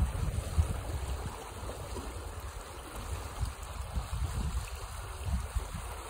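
Foamy water rushing steadily down an earthen drainage channel. Low, uneven wind rumble on the microphone is strongest about the first second.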